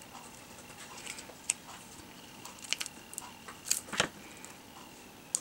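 Light clicks and taps of hands handling paper die-cuts and a plastic glue bottle on a cutting mat, the sharpest tap about four seconds in.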